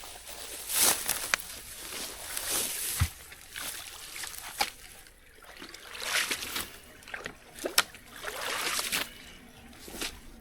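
Water sloshing and splashing in floodwater backed up by a beaver dam, in several separate surges of about a second each, with a few sharp knocks between them.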